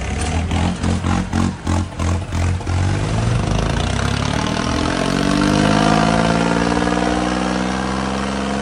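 Tractor diesel engine starting loud and pulsing about three times a second, then revving up and holding at a higher pitch.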